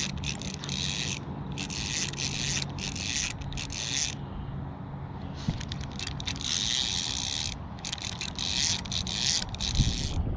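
Fishing reel being cranked to retrieve a lure, its gears whirring in spells of one to two seconds with short pauses between turns.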